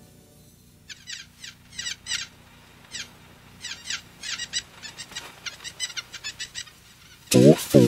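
Recorded small birds chirping, a sound effect made of many quick, high, falling chirps. A loud voice starts near the end.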